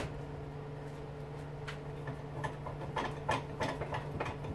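Light metallic clicks and taps from an electric lawnmower motor's parts being handled, scattered at first and coming more often from about two seconds in, over a steady low hum.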